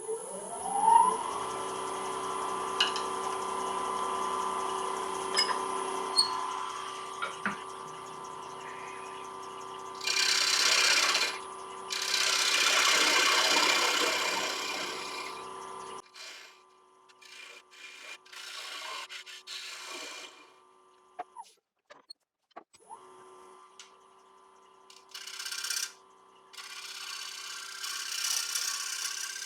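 Wood lathe motor spinning up with a rising whine, then running steadily while a turning tool cuts the foot of a dried mulberry bowl blank, giving bursts of rough scraping noise about ten seconds in and again near the end.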